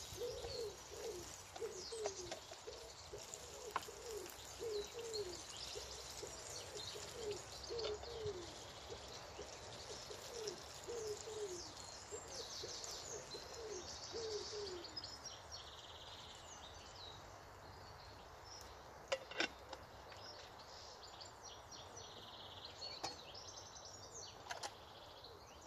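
Pigeon cooing over and over in short phrases of low falling notes for the first fifteen seconds or so, with small birds chirping in the background. A couple of sharp knocks come near the end.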